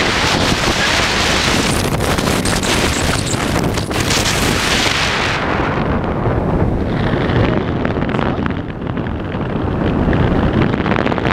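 Wind rushing over the camera microphone as a tandem skydiver descends under the parachute canopy. The airy hiss eases about halfway through, leaving a lower rumble.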